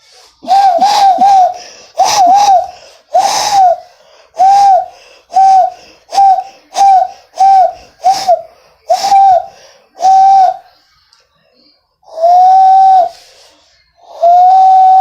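Hand whistle (loon call) blown through cupped hands across the thumb knuckles: a string of short, breathy hooting notes at a steady middle pitch, a few wavering, then two longer held notes near the end.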